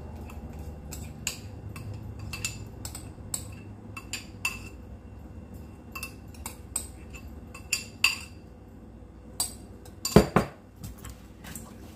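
A utensil scraping and tapping against a ceramic bowl as thick marinade is scraped out, making a run of short, sharp clinks, about two or three a second. A heavier knock about ten seconds in is the loudest sound.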